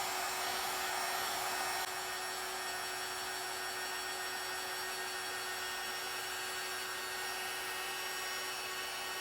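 Heat gun blowing steadily over the alcohol ink on a spinning tumbler, its steady hum dropping a little in level about two seconds in.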